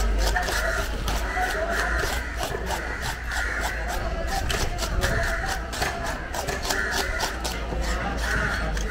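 Knife scraping the scales off a barracuda on a wet stone slab: quick, repeated scraping strokes with many sharp clicks.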